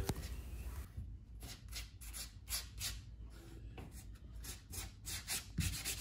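Wood putty being rubbed into nail holes on a wooden surface: a quiet run of short, irregular scraping strokes, several a second.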